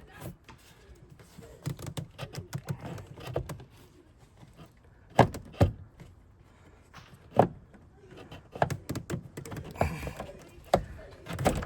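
Irregular knocks and clunks of the plastic airbox being handled and worked loose, with two sharper knocks about five and seven seconds in.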